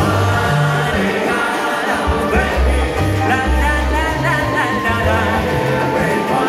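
Salsa band playing live, with singing over a moving bass line.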